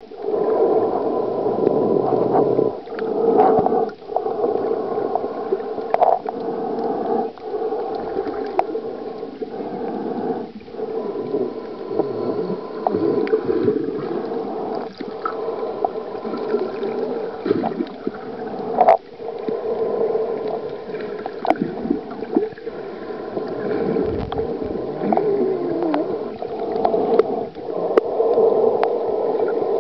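Muffled underwater noise picked up by a submerged camera: a steady dull wash of water with brief dips now and then and scattered sharp clicks.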